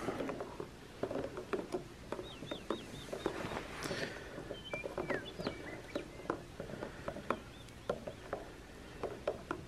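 Birds calling outdoors: a run of about four quick chirps around three seconds in and a short falling whistle around five seconds, over scattered light clicks and taps of camp gear being handled.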